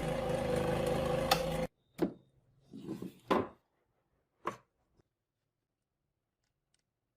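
A steady mechanical running sound cuts off abruptly, followed by three sharp knocks spaced about a second apart.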